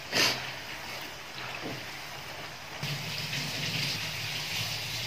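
Batter-coated cauliflower florets deep-frying in hot oil on high flame, fried crisp: a steady sizzle and bubbling. There is a brief louder rush right at the start, and the sizzle grows louder about three seconds in.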